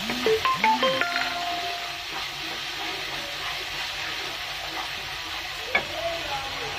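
Spice paste frying and sizzling in hot oil in a non-stick wok while a wooden spatula stirs it. There is a cluster of short spatula knocks and squeaky scrapes against the pan in the first second or so, and one more near the end.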